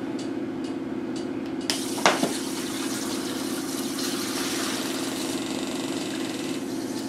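Fizz Giz CO2 injector hissing as it pushes carbon dioxide from the cartridge into a plastic bottle of flat beer to carbonate it. The hiss starts about two seconds in with a brief sharp squeak, holds steady for about five seconds, and tails off near the end.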